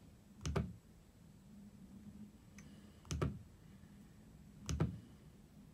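Nest Learning Thermostat's display being pressed in to select menu options: three short clicks a couple of seconds apart.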